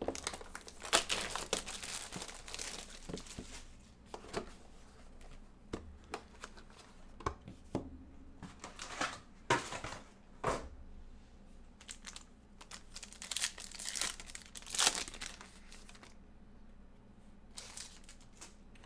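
Plastic wrapping crinkling and tearing as a sealed box of trading cards is unwrapped and opened, in a run of short rustles and rips that thin out near the end.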